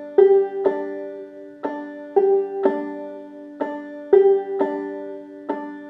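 Five-string banjo played clawhammer style, repeating the slow 'bum bitty' pattern: a string struck down with the back of the nail, then the thumb plucking the fifth string. The notes come in even groups of three and ring out between strokes.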